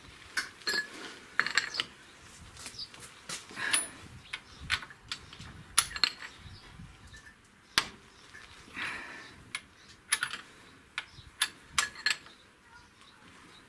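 Irregular metallic clicks, knocks and short scrapes from a wrench with a cheater pipe on it, worked to tighten a front suspension control-arm nut.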